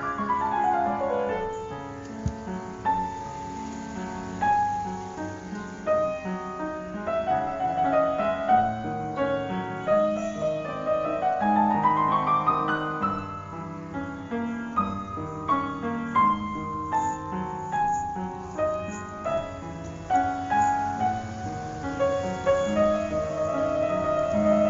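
Background piano music, with quick runs of notes falling at the start and rising about halfway through.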